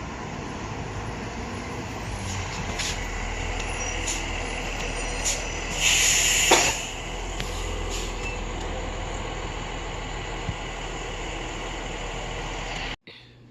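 School bus running at the curb, a steady low engine rumble, with a loud hiss of air from its air brakes lasting about a second near the middle. The sound cuts off suddenly near the end.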